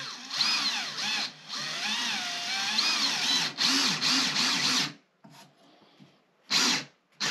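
Cordless drill driving a wide-head screw through a swivel caster's mounting plate into a speaker cabinet, its motor speed rising and falling as the trigger is eased, in three runs with short breaks. Two short bursts of the drill follow near the end.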